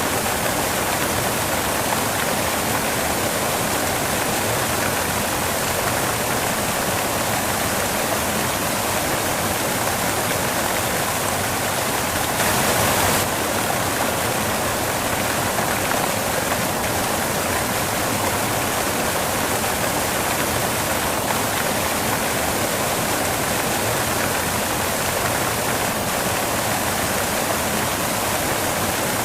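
Steady white noise: an even rushing hiss with no rhythm or pitch, briefly a little louder for under a second about twelve seconds in.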